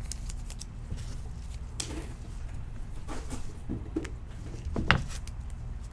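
Tabletop handling sounds: scattered light taps and rustles over a low steady hum, with one sharper knock about five seconds in.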